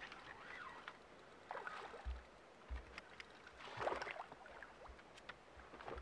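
A hooked carp splashing and thrashing at the surface beside a boat in several short bursts, with a couple of dull low thumps.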